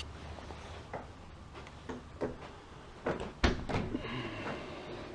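A door being handled: a few light clicks, then a louder knock about three and a half seconds in.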